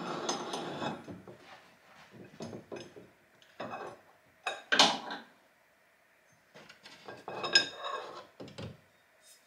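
Metal clinks, knocks and scraping as a car's steering column is worked loose and pulled out from under the dashboard. The knocks come in irregular bursts, the loudest about five seconds in and another near eight seconds.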